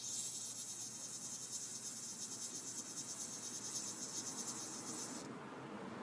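Cicada giving a harsh, rapidly pulsing high buzz while a dog paws at it, the distress buzz of a caught cicada; it cuts off suddenly about five seconds in.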